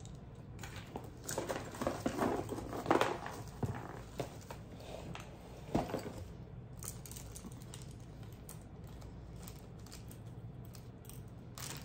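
Handling noises from small jewelry and keychains being picked out of shredded paper filler: rustling and light clicks, busiest over the first six seconds, then only a few scattered clicks.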